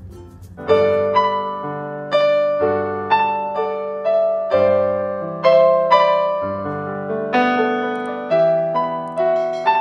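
Background music led by a piano: struck chords and melody notes, each fading after it is played, coming in under a second in.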